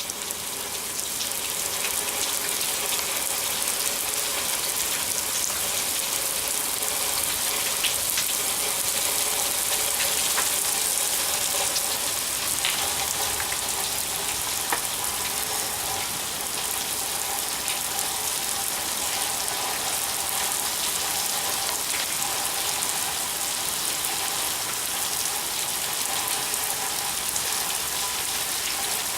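Steady rain falling and pattering on surfaces, a dense even hiss that grows a little louder about a second in, with faint steady tones underneath.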